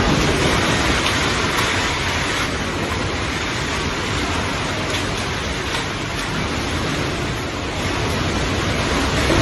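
Steady rushing noise of fast-flowing water, with no distinct knocks or tones.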